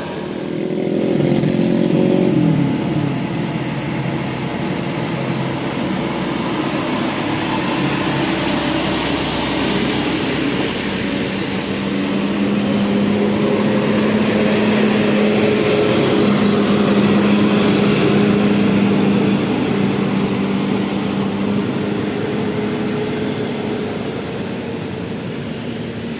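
A motor vehicle's engine running with road noise. Its pitch falls over the first few seconds, then holds steady for a stretch in the middle.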